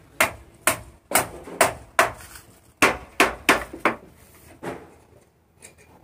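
A hammer striking the wooden shuttering timbers: about ten sharp blows at roughly two a second, with a short pause midway. The blows stop about five seconds in.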